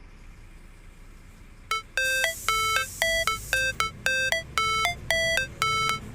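An electronic melody of short, evenly spaced beeping notes at changing pitches, like a phone ringtone. It starts after a brief quiet stretch, a little under two seconds in.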